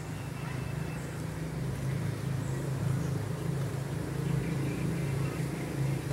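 A low, steady motor rumble, like an engine running nearby, that grows louder over the first few seconds and then holds.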